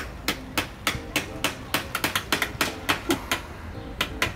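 Small hammer tapping nails through wire mesh into a wooden frame: quick, evenly spaced strikes, about three a second, each with a short ringing note.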